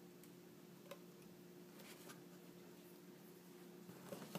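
Near silence with faint handling clicks from the GoPro Hero 3's hard plastic housing and packaging mount being worked loose: a few scattered ticks, then a small cluster near the end. A low steady hum runs underneath.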